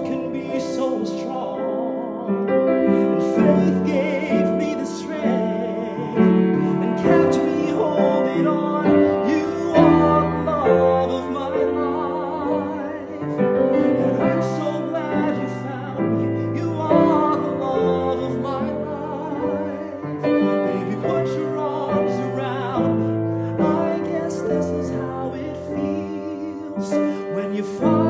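A man singing a slow ballad, with vibrato on long held notes, while accompanying himself on piano.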